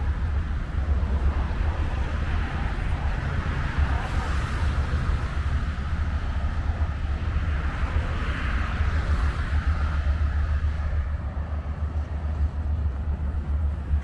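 Outdoor road ambience: a steady low rumble with a shifting hiss of passing traffic, swelling briefly twice as vehicles go by.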